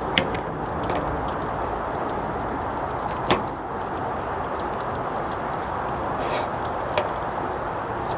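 Steady rush of wind noise, with a few sharp clicks of a knife cutting cauliflower florets.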